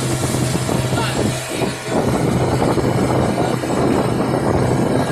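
An engine running steadily with a low, even hum, mixed with rushing wind noise on the microphone.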